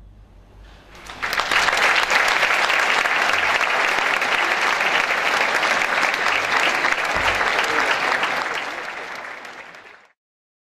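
Audience applauding in a large hall: the clapping starts about a second in, swells quickly to a steady level, then fades near the end and cuts off abruptly.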